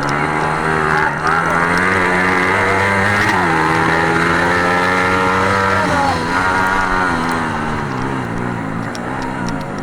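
Racing engine running at high revs under race conditions, its pitch dropping sharply about three seconds in and again around six seconds, then rising and falling several times near the end as it changes gear and throttles off and on.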